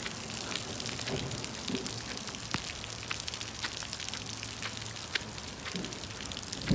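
Rain falling: a steady hiss with many separate drop taps scattered through it.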